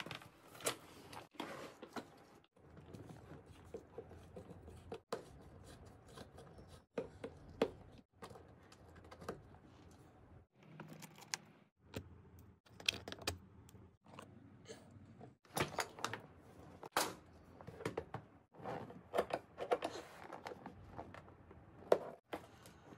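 Irregular clicks, scrapes and light knocks of a hand screwdriver turning screws out of the plastic underside of a swivel chair seat, and of the seat cushion being handled.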